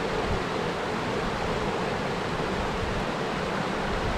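Mountain stream rushing over rocks below a small waterfall: a steady, even rush of water.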